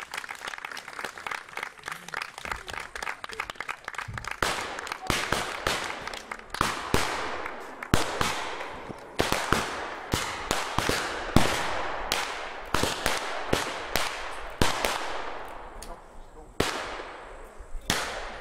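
An irregular run of sharp bangs with crackling in between. Quicker, lighter crackles come first, and the bangs grow louder and more spaced from about four seconds in, each trailing off briefly.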